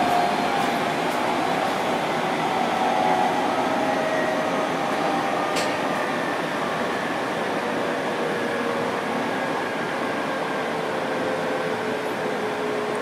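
Running noise of a 701-series electric train heard from inside the car: a steady rumble with a faint whine that slowly falls in pitch. There is a single short click about halfway through.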